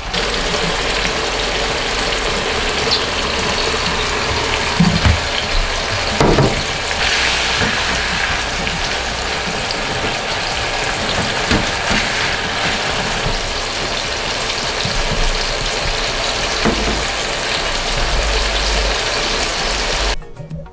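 Shrimp, shimeji mushrooms and green peppers sizzling and bubbling in oil in a frying pan, stirred with a spatula, with a few knocks against the pan. The sizzling cuts off suddenly near the end.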